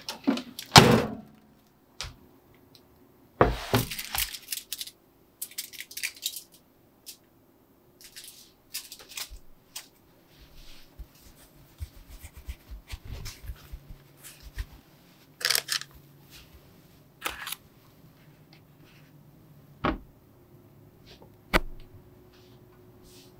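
Metal baking pans being handled: a loaf tin and a roasting tray knock and clink against each other and against the oven and worktop, giving several separate sharp thunks with light scraping between them. The loudest knock is about a second in.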